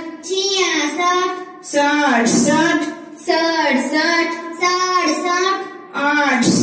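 A high voice singing the Hindi counting numbers in a sing-song tune, one held phrase of about a second and a half after another, with short breaks between them.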